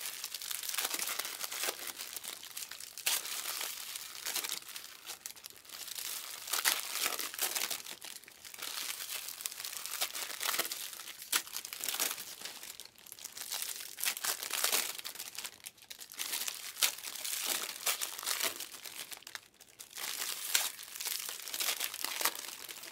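Trading-card pack wrappers crinkling and tearing as packs are ripped open and the cards handled: a continuous run of irregular rustles and crackles.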